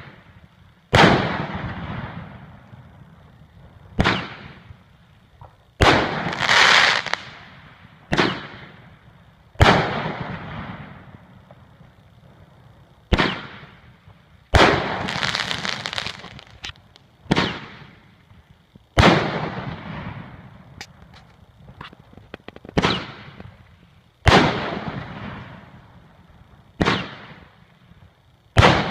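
A 16-shot consumer firework cake ("Dog Pound") firing its shots one after another, roughly every one to two seconds. Each shot is a sharp bang followed by a fading crackle.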